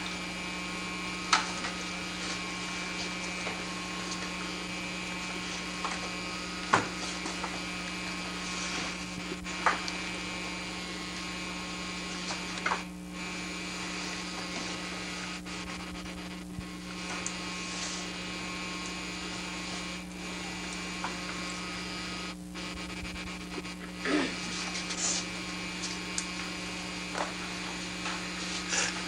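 Steady electrical mains hum, with a few short, sharp clicks scattered through it.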